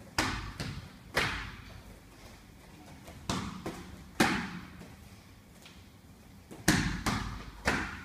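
Sparring strikes landing with sharp thuds, in three quick clusters of two or three hits each, a couple of seconds apart, each hit with a short decaying echo.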